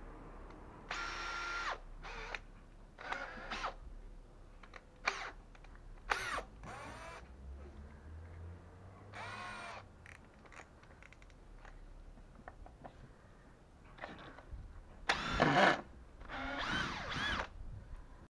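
Makita DHP481 18V brushless cordless drill-driver run in a string of short trigger pulls, the motor whining up to speed and winding down each time. Near the end come two longer, louder runs as the bit goes into the wooden beam.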